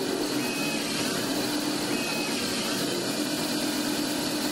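Tormach Slant-Pro CNC lathe turning a small 440C stainless steel pin with a carbide insert: a steady hiss of cutting over the even hum of the spindle.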